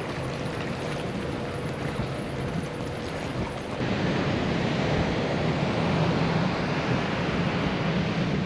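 Storm wind blowing across the microphone as a steady rush of noise. About four seconds in it gives way to a louder, deeper rush of heavy storm surf and wind.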